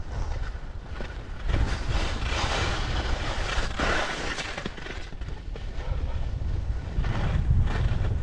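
Wind buffeting a helmet- or body-mounted action camera's microphone while skiing, with surges of skis hissing and scraping over hard snow as turns are carved, strongest in the middle and again near the end.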